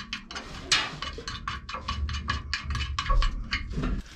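Background music with a quick, steady percussive beat and a low bass line.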